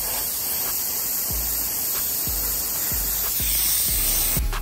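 Airbrush spraying paint: a steady high hiss that cuts off near the end. Background music with a steady beat plays underneath.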